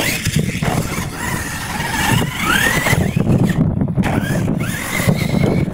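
Radio-controlled monster truck's electric motor whining, rising and falling in pitch several times as it is throttled on and off, over a steady low rumble.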